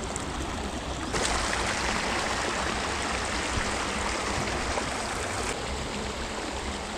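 Small creek running over shallow riffles: a steady rushing of water that gets abruptly louder about a second in and drops back a little over five seconds in.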